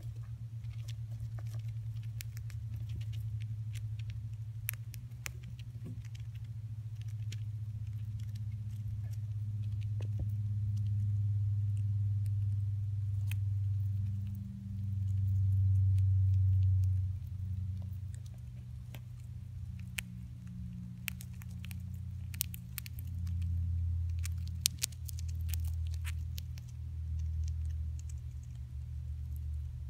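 Dwarf hamster nibbling seeds and shifting in paper bedding: small scattered clicks and crackles. Under them is a low hum that swells about halfway through and again a few times after.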